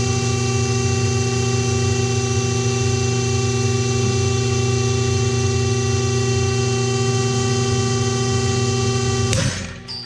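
Break-test rig's motor running with a steady hum as it pulls a gate-open carabiner. About nine and a half seconds in there is a sharp crack as the carabiner breaks, and the motor then runs on more quietly.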